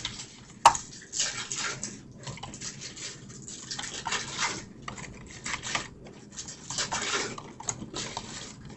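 Rustling and crinkling of trading-card packs being opened and the cards handled, in irregular bursts, with a sharp click just under a second in.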